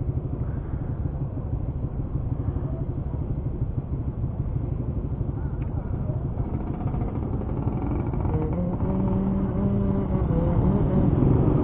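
Motorcycle engines idling in a crowd of stopped motorcycles, a steady low rumble. About eight seconds in, an engine note comes up and holds, then climbs near the end as the motorcycles pull away.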